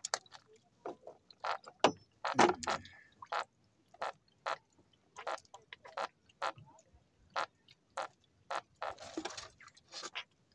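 Irregular sharp clicks and small taps, about two or three a second, with two brief rustles: hands working fish off a handline's hooks and handling the hooks and line.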